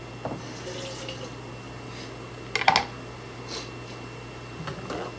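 Kitchenware clattering: a few short knocks and clicks, the loudest a quick cluster about two and a half seconds in, over a steady low hum.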